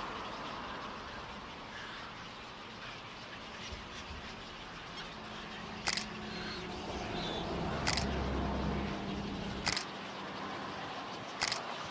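Four sharp DSLR camera shutter clicks about two seconds apart, the later ones doubled, over steady outdoor background noise. A low hum swells in the middle and stops at the third click.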